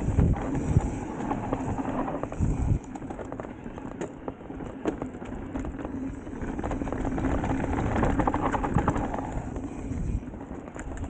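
Electric mountain bike riding down a dirt downhill trail: wind buffeting the action camera's microphone in a heavy rumble over the rattle of the bike and tyres on rough ground, with scattered clicks and knocks from bumps.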